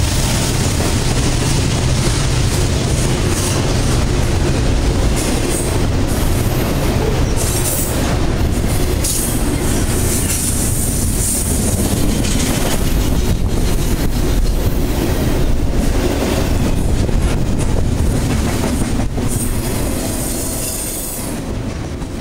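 Double-stack container cars of a freight train passing close at speed: a steady rumble and rattle of steel wheels on rail with frequent clicks over the joints. It fades in the last couple of seconds as the end of the train goes by.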